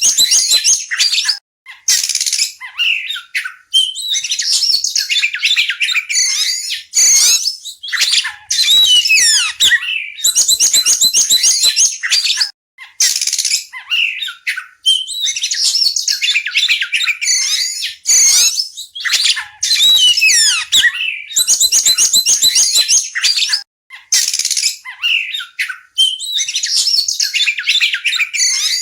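Oriental magpie-robin singing: fast, varied phrases of rapid trills, chattering notes and sweeping whistles, broken by short pauses.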